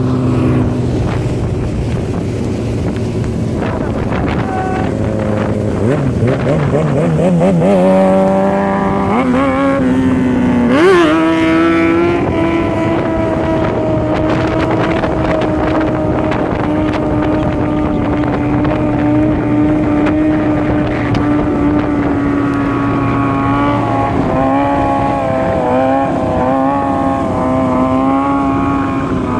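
Motorcycle engine under way: it accelerates with rising pitch and shifts up a few times, then holds a steady cruising note that begins to waver in the last few seconds. Steady wind rush over the microphone runs underneath.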